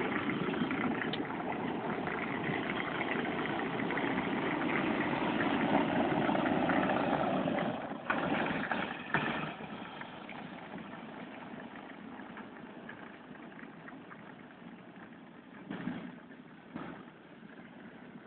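Battery-powered ride-on toy pickup truck driving on concrete: its electric motors and plastic wheels make a steady rolling noise that is loud for the first eight seconds or so, then drops away as it moves off, with a few short knocks along the way.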